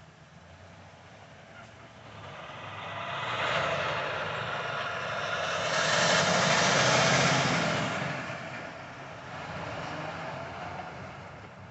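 A tractor-trailer passing close by on the road: tyre and engine noise swells, loudest around six to eight seconds in, then eases as the trailer goes past.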